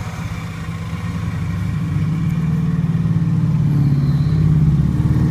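A car engine idling with a steady low hum that grows louder from about two seconds in.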